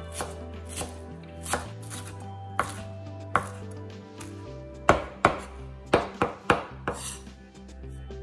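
Wide-bladed kitchen knife chopping fresh cilantro on a wooden cutting board: single knocks of the blade through the leaves onto the board, spaced out at first, then a quicker run of louder chops in the second half.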